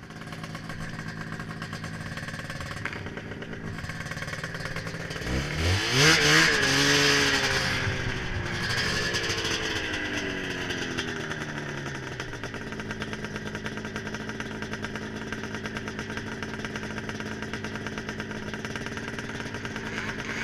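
Ski-Doo snowmobile's Rotax 583 two-stroke twin engine, fitted with aftermarket pipes, running steadily. It revs up sharply about five seconds in, then the revs fall away slowly over several seconds and it settles back to a steady run.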